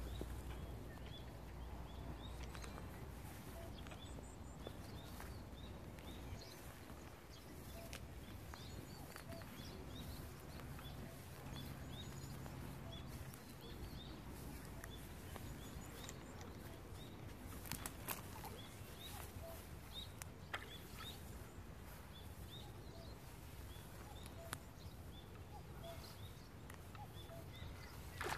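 Outdoor ambience of small birds chirping, with short high chirps scattered throughout over a faint, steady low background noise, and a few sharp clicks about two-thirds of the way through.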